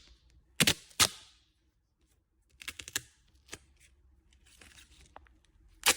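Adhesive tape being pulled off a roll in short rips: two sharp rips in the first second or so, a cluster of smaller clicks and crackles near the middle, and another sharp rip near the end.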